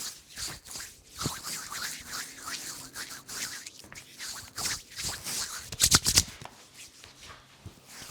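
Hands rubbing and brushing over skin and hair during a massage, in irregular strokes, with a quick burst of loud slaps about six seconds in.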